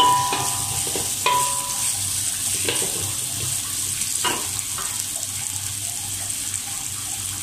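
Onion, lemongrass and garlic sizzling in a little oil in a wok as they are stir-fried, with a steady hiss. The stirring utensil clinks against the wok a few times in the first half, some strikes ringing briefly.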